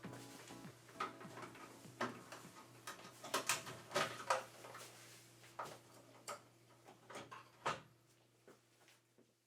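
Scattered clicks and light knocks of plastic parts being handled and unclipped while an air conditioner is taken apart, over a faint steady hum.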